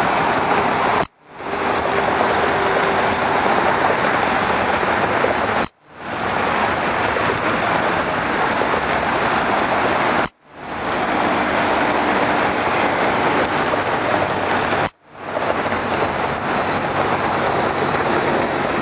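Steady jet roar of a United CRJ regional jet's two rear-mounted turbofans taking off, heard from across the airfield as an even rushing noise. The sound drops out briefly and swells back four times, about every four and a half seconds.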